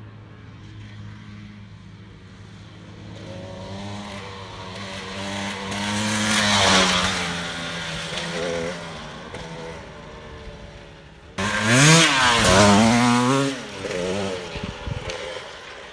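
Dirt bike engine accelerating hard through the gears, its pitch climbing and dropping with each shift. It swells to a peak about six seconds in, eases off, then comes back suddenly loud about eleven seconds in with quick rising and falling revs before fading.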